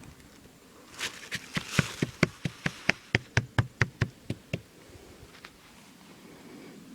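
A quick run of sharp taps, about four to five a second, starting about a second in and stopping after about three and a half seconds.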